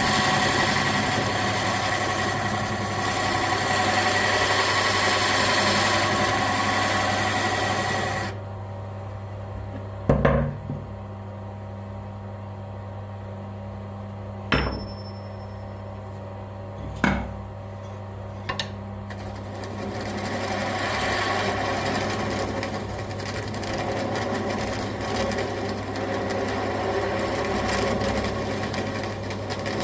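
Electric motor of a bench grinder running with a steady hum, with a coarse abrasive rasp for the first eight seconds and again from about twenty seconds in as work is held against the abrasive. In the quieter stretch between, four sharp knocks.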